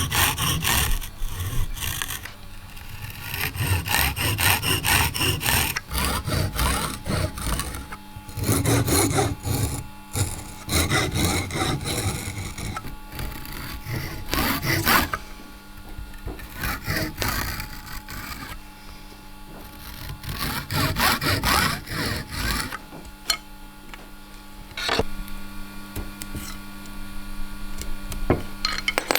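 Hand tools working guitar brace stock: irregular sawing and rubbing strokes on wood, which stop about three-quarters of the way through. After that a steady electrical hum remains, with a few light taps.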